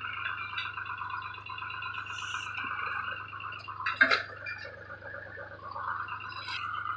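Tractor-mounted backhoe digging: the tractor engine runs steadily under a high whine from the hydraulics that shifts in pitch as the controls are worked. A single sharp knock comes about four seconds in.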